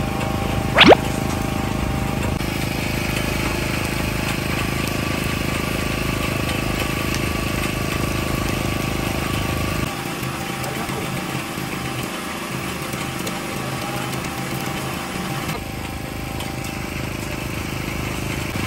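A steady motor hum with a busy background. A brief, very loud sharp sound comes about a second in.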